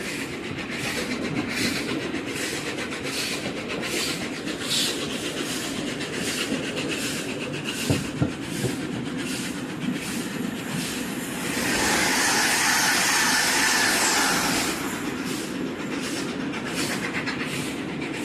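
Train running on the rails, heard from inside a coach: wheels clicking over rail joints about twice a second over a steady rumble. For about three seconds past the middle a louder hiss rises over it and then drops away.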